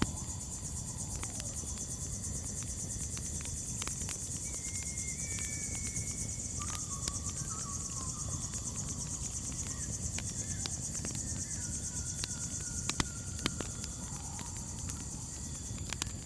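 Steady chorus of crickets chirping, with scattered sharp crackles from a campfire and a low rumble underneath. A few faint held tones sound now and then.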